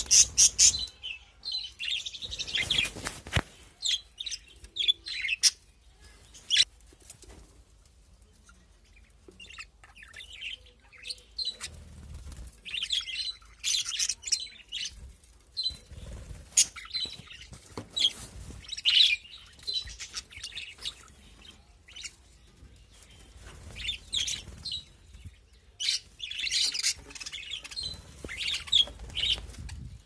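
A flock of budgerigars chirping and chattering in irregular bursts of short high calls, busiest near the start and again in the second half. There is a flurry of wing flaps at the start as a bird flies between perches.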